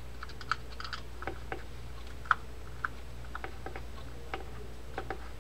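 Irregular light clicks and taps of a small hand tool working at a spinning reel's metal shaft and collar, as the collar and bushing are worked loose. The sharpest click comes about two seconds in.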